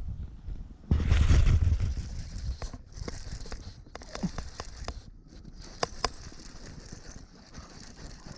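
Hookset on a bass: a sudden loud burst of rod-sweep handling and wind noise about a second in, then a baitcasting reel winding in line against a hard-bent rod, a steady high whir that breaks off briefly twice, with a few sharp clicks.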